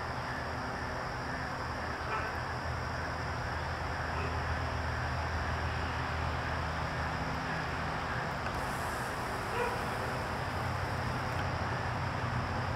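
Steady low outdoor rumble, with a few faint short calls now and then.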